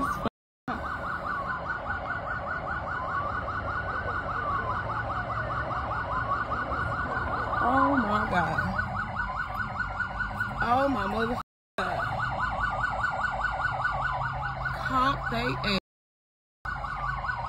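Police sirens: one in a rapid yelp and another in a slow wail rising and falling, heard from inside a car over its low engine hum. The sound cuts out briefly three times.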